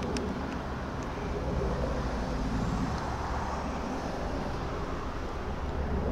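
AgustaWestland Merlin military helicopter flying low overhead on approach, its rotor beat and turbine engines running steadily. The sound swells slightly a second or two in.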